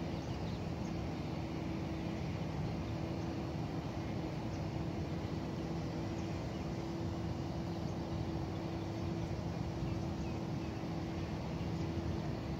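Steady outdoor background noise: a constant low hum that holds even, with no breaks.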